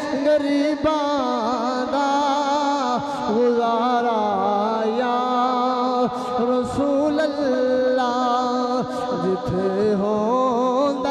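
A man singing a long, drawn-out, ornamented line of a Punjabi naat, a devotional song in praise of the Prophet, his voice wavering with vibrato over a steady lower held note.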